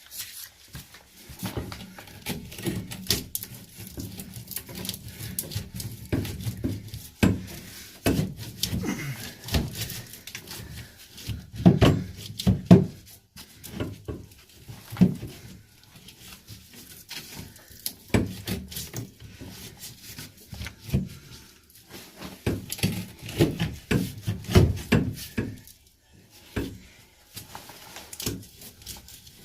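Irregular knocking and thudding on the drain pipework, blow after blow, with the heaviest strikes about twelve seconds in and again between twenty-three and twenty-five seconds in.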